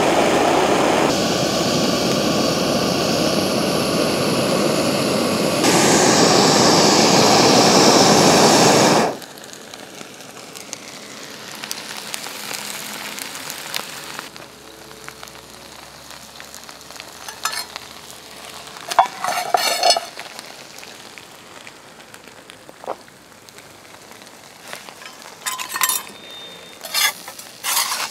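Backpacking gas stove burner (MSR Pocket Rocket on an isobutane canister) running with a steady rush, which stops abruptly about nine seconds in. After that a faint sizzle from the foil-wrapped meat on the hot pan, with a metal utensil clinking against the pan a few times, around the middle and toward the end.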